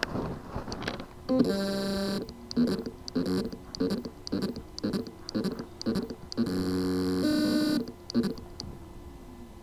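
A hard drive with loose spindle-motor contacts, its motor failing to reach full speed. It buzzes with a steady pitched tone, pulses about two or three times a second, then buzzes again.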